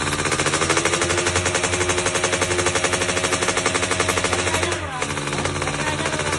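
Racing motorcycle engine with an open exhaust running at high revs, a rapid, even crackle of firing pulses; the revs dip briefly and climb back about five seconds in.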